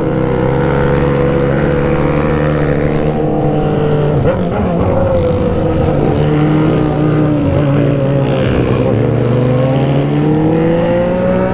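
Honda Hornet's inline-four with a straight-pipe exhaust running under way from the rider's seat. The engine note holds steady, dips lower in the middle, then climbs steadily toward the end as the bike accelerates.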